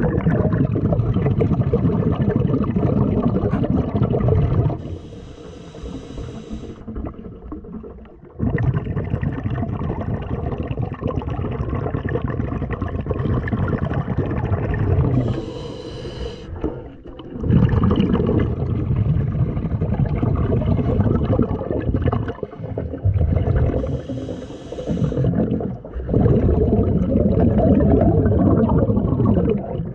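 Low underwater rumble and gurgle of churning water and rising air bubbles around a submerged camera. It drops away three times for a second or two, leaving a faint hiss.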